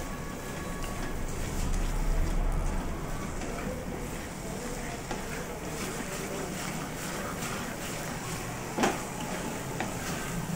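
Wooden spatula stirring and scraping grated apple halwa around a metal kadhai, over a steady low rumble, with one sharp knock near the end.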